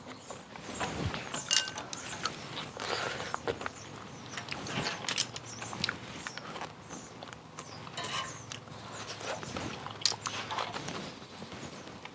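Close-miked eating sounds of a bowl of clam kalguksu noodle soup and kimchi: irregular chewing and slurping, with sharp clicks of chopsticks or a spoon against the dish.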